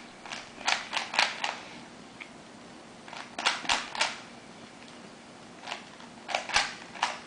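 Plastic Rubik's Cube layers being turned by hand, clicking in quick runs of four to six turns with pauses between, in the three-by-three solve.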